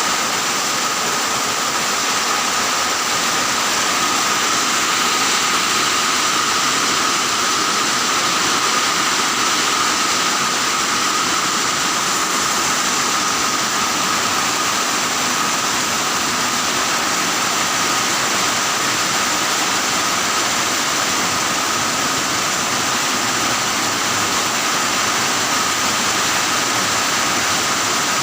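Steady rain with no break or thunderclap, and a thin steady high tone running through it.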